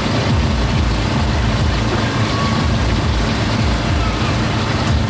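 Steady low rumble of engines from street traffic.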